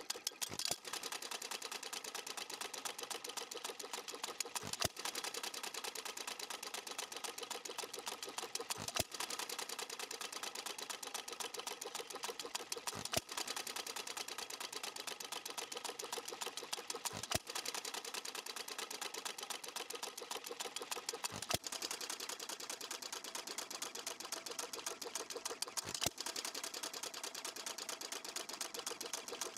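Small antique hit-and-miss engine (Stuart Little Major) running. Its valve and governor gear make a fast, steady clicking, and a louder knock comes about every four seconds as it fires between coasting strokes.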